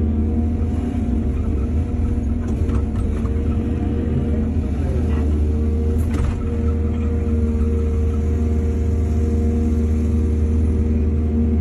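Diesel excavator engine running steadily under work, its pitch sagging briefly about five seconds in, with a few light clanks and one sharper metallic knock about six seconds in.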